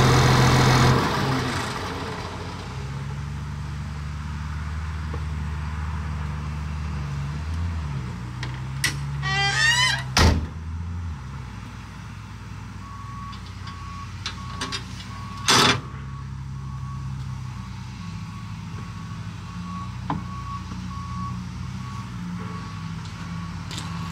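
Caterpillar D6N dozer's diesel engine running hard for about a second, then settling to a steady idle. Partway through come two sharp knocks, and from about halfway on an intermittent beeping repeats at a steady pitch.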